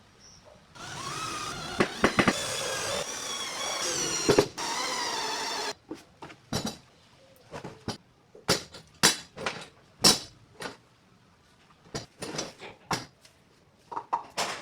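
A small power tool runs for about five seconds with a wavering pitch, then a string of sharp knocks and taps on wood as the box is worked on.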